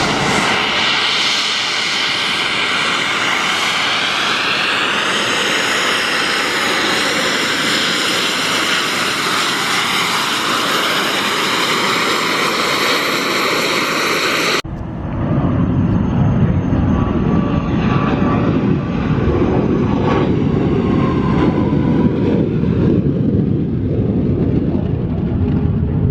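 Airplane engine noise at an airshow: first a high whine that rises in pitch a few seconds in, then, after an abrupt cut about halfway through, a deeper, rougher engine sound.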